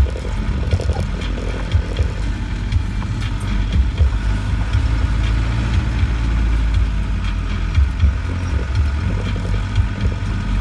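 Off-road 4x4's engine running at low speed, heard from inside the cabin, with occasional knocks and thuds from the vehicle lurching over the rough track.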